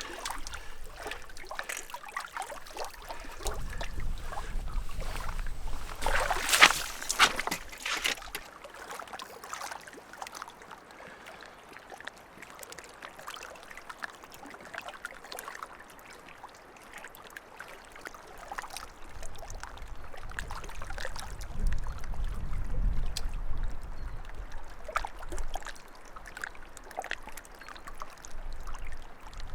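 Water trickling and splashing at the lake's edge, with a louder burst of splashing about six to eight seconds in.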